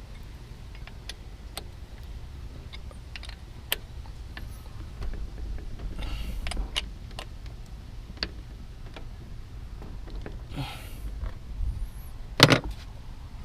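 Scattered light clicks and taps of hand work on parts and tools, with a couple of short rustles and one louder knock near the end.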